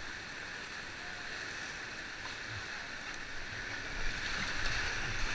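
Rushing whitewater of a river rapid, a steady noise that grows louder about four seconds in as the kayak moves out into the current.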